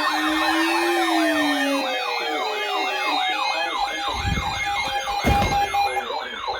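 Several electronic sirens sounding together: one yelps up and down in pitch about twice a second, another holds a steady tone that stops about six seconds in, and others wind down in long falling glides. Two low thumps come about four and five seconds in.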